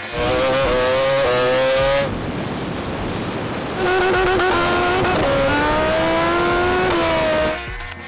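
Racing motorcycle engines at full throttle off the line, the pitch climbing and dropping back at each quick upshift, twice over with a stretch of rushing noise between. The second run comes from onboard the supercharged Suzuki Hayabusa, shifting up through its gears.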